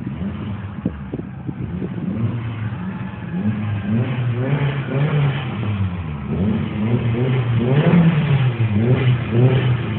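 Nissan 240SX engine revved in a series of short blips, about one a second, starting a couple of seconds in, a car whose owner reports an exhaust leak.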